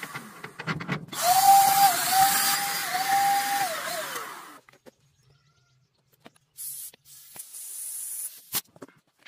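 Cordless drill with a socket attachment running on bolts, its whine dipping now and then under load and winding down about four and a half seconds in. Later a short hiss of compressed air from a tyre-inflator hose, with a few clicks.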